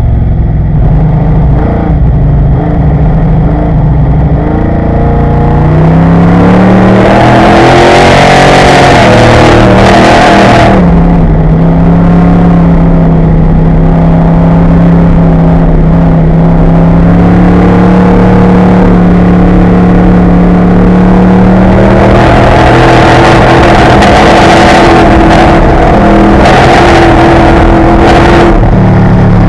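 Corvette Grand Sport race car's V8 engine at full throttle, heard very loud from the on-board camera. The note climbs as the car accelerates out of a corner, holds a steady high pitch for about ten seconds, then climbs again after about twenty-two seconds.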